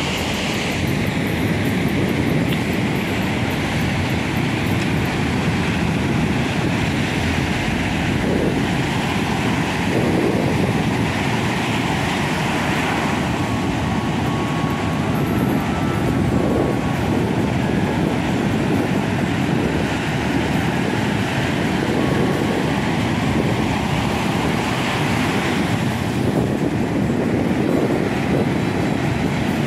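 Steady noise of ocean surf on a beach, mixed with wind blowing on the microphone.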